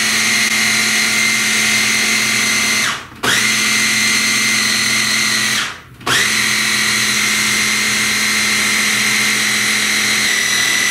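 Ninja blender's press-down motor head running, blending thick almond-flour muffin batter with a steady high whine. It cuts out briefly about three seconds and six seconds in, winding down and spinning back up each time.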